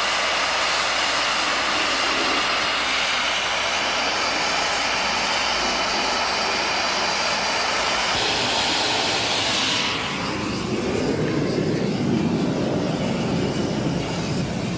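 Loud, steady rushing hiss of white vapour jetting out under pressure. About ten seconds in it gives way to a lower rushing rumble.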